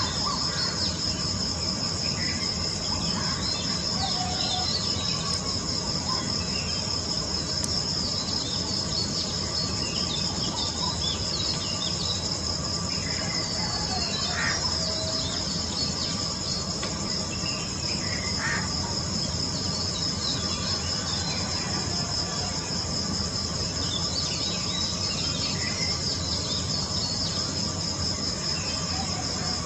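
Steady high-pitched chirring of crickets, with a few short bird chirps now and then over a low steady background rumble.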